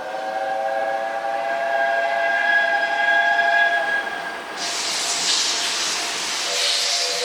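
Steam locomotive whistle blowing a long blast of several tones together. About four and a half seconds in, a loud hiss of steam takes over as the whistle fades, and the whistle sounds again near the end.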